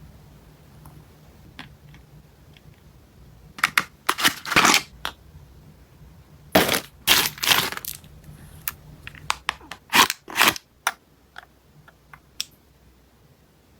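Packaging being handled and opened by hand: three bouts of loud crinkling and crackling, with small clicks and taps between them.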